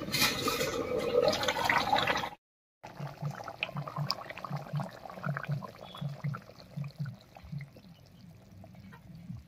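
A loud hissing rush over the uncovered pan for about two seconds, then a short break. After that, thick chitol fish curry simmers with low bubbling blips about two or three times a second.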